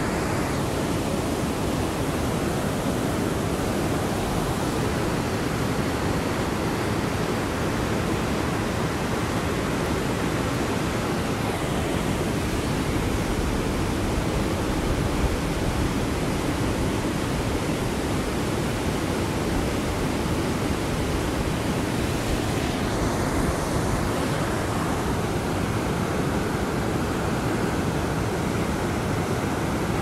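Fast mountain river rushing through whitewater rapids: a steady, unbroken rush of water.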